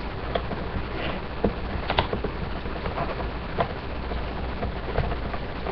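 Scattered light clicks and taps of rubber loom bands and a hook being handled on a wooden table, over a steady hiss and low hum.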